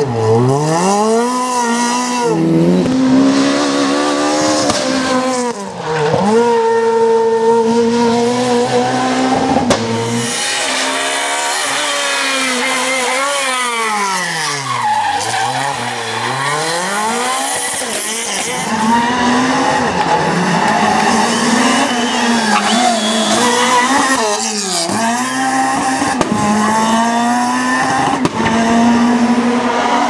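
Renault Clio R3 rally cars' 2.0-litre four-cylinder engines at full throttle, several cars in turn. Revs climb and drop sharply through gear changes, and each car dips in revs for a corner, then accelerates hard away.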